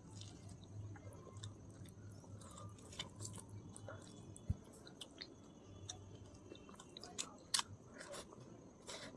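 A person chewing and eating chicken biryani close to the microphone: wet mouth clicks and soft crunches at an uneven pace, with a few sharper clicks and a thump.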